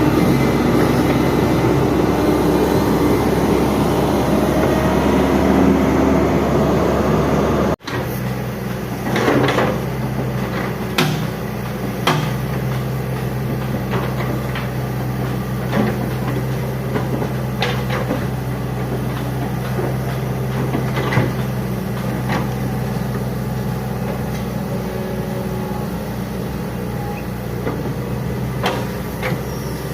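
Hitachi Zaxis 110MF long-reach excavator running, its diesel engine giving a steady hum, with scattered sharp metallic clanks and knocks. The sound breaks off suddenly about eight seconds in and resumes as a steadier engine hum with the clanks.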